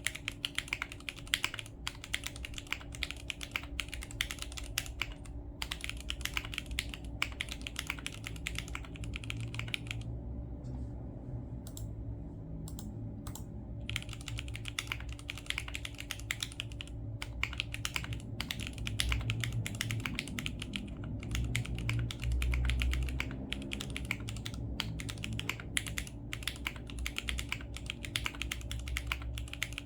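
Typing on a Geonworks F1-8X mechanical keyboard with stock Gateron X switches and CRP R4 keycaps: rapid, continuous keystroke clacks. The stock springs give a high ping. About ten seconds in, the typing stops for a few seconds, with only a few single keystrokes, then resumes.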